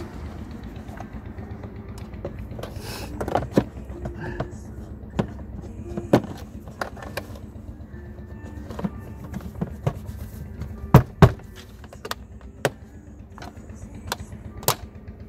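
Plastic clicks and knocks as a 1996 Mercedes's air filter housing cover is pressed and snapped into place by hand, the two loudest close together about eleven seconds in, over a steady low rumble.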